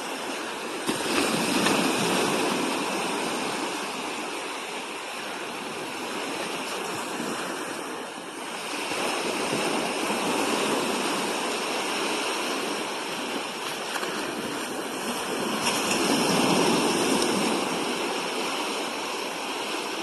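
Sea waves breaking and washing up on a beach, a steady rush that swells and falls back in slow surges every several seconds.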